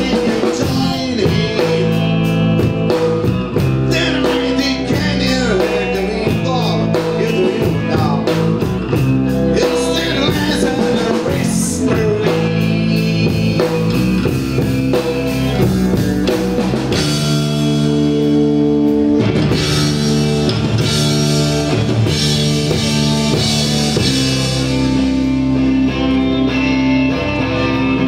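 Rock music with electric guitars, a drum kit and singing, played steadily throughout.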